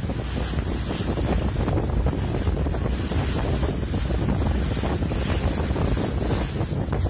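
Wind buffeting the microphone, a steady rushing rumble with no break.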